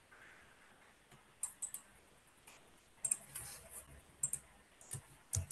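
Faint, scattered clicking of a computer keyboard and mouse, in small clusters with short gaps between.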